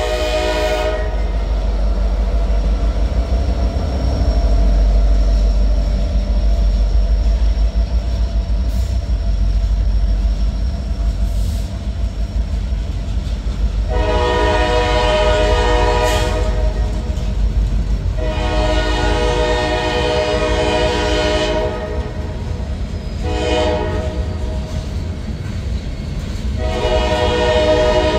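Norfolk Southern freight train rolling past: a steady low rumble from the diesel locomotives and freight cars on the rails. The locomotive horn sounds a chord at the start, then from about fourteen seconds in blows long, long, short, long, the grade-crossing signal.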